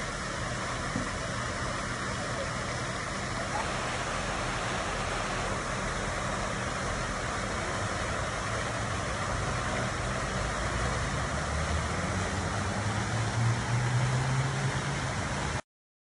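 Road traffic: a steady wash of passing cars, with an engine hum growing louder near the end as a vehicle comes close. The sound cuts off suddenly just before the end.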